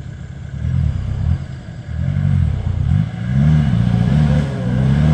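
Land Rover Discovery 300Tdi's 2.5-litre four-cylinder turbodiesel revved hard in about four surges, its pitch rising and falling each time, as the vehicle struggles to climb out of a muddy ditch where it is stuck.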